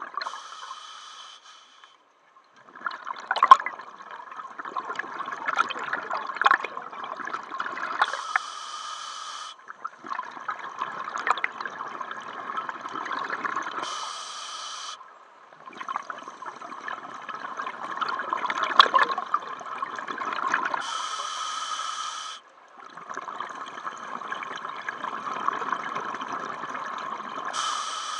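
Scuba diver breathing underwater through a regulator: each inhalation is a short hiss, followed by several seconds of bubbling exhalation. There are five breaths, one every six to seven seconds.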